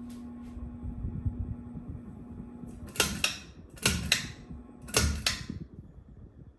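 Ceiling fan motor humming steadily, then stopping about three seconds in, followed by three sharp clattering clicks about a second apart.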